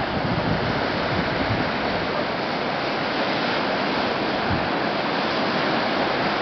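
Steady rushing of breaking water as the Severn Bore tidal wave surges up the river, its white crest churning along the bank.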